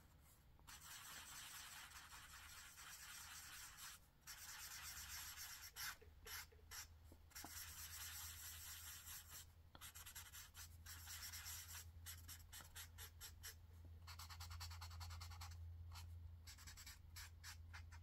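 A felt-tip marker's broad chisel tip scrubbing across paper while a small area is coloured in. It is faint and comes in long stretches of strokes broken by short pauses, over a faint steady low hum.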